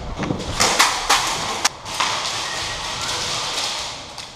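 A quick run of four or so sharp cracks and knocks in the first two seconds, then a steady rustling hiss.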